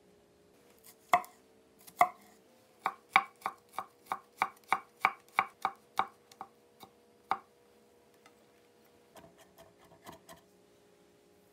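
Santoku knife chopping a garlic clove on a bamboo cutting board: two heavier knocks, then a run of quick, even chops about three a second, and a few softer, faster chops near the end as the garlic is minced.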